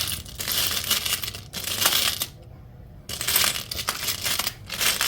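A handful of small charms clinking and rattling together as they are rummaged through, in two stretches of about two seconds with a short lull between.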